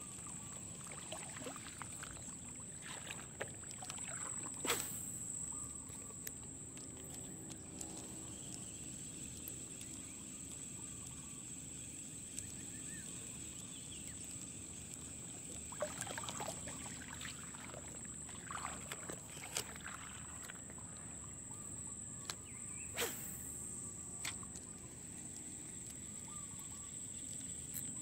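Quiet outdoor ambience with a steady high-pitched insect drone over light water noise, broken by scattered clicks and knocks from handling a spinning rod and reel while working a lure.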